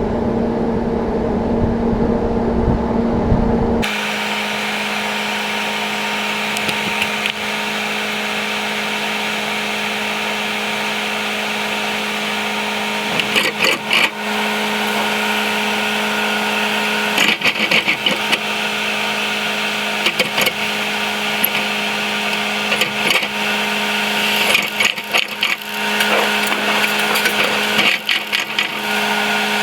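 John Deere 9500 combine running steadily under harvest load, with a constant mechanical whine. The sound changes abruptly about four seconds in, and bursts of rattling come through several times later on.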